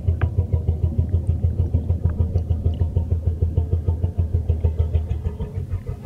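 Hydrophone recording of a Chilean blue whale's song: a rapid train of low, deep pulses, about five a second, fading somewhat near the end. This pulsed song is the local 'dialect' of the blue whales off Chile.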